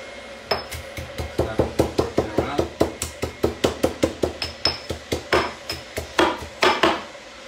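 Pestle pounding in a mortar to crush garlic, in a fast run of sharp knocks, about four to five a second, with a few harder strikes near the end.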